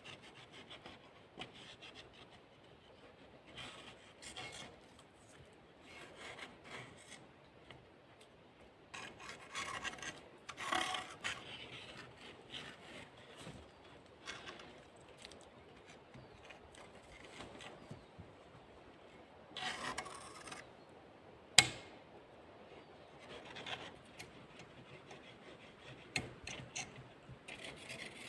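Irregular rubbing and scraping strokes as soot is cleaned out of a stove's chimney pipe, with one sharp knock about three-quarters of the way through.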